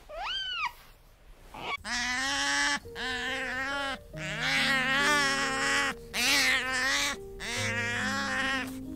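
Sea otters calling: first a short squeak that rises and falls, then about five drawn-out squealing cries, each about a second long, with short gaps between them.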